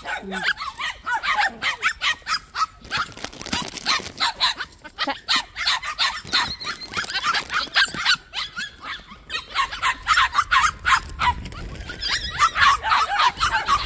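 Young puppies yipping and barking in a rapid string of short, high-pitched calls, busiest near the end.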